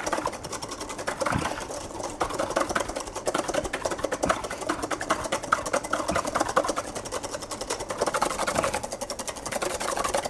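Wire balloon whisk beating meringue by hand in a stainless steel bowl: a rapid, even clicking and scraping of the wires against the metal. The egg whites and beet sugar are being whipped in the final stage toward stiff peaks.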